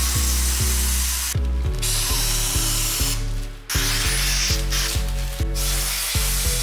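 Handheld steam cleaner jetting steam onto a car window with a steady hiss, heating the glue of old tint film so it peels off. The hiss cuts out briefly twice, over background music with a steady beat.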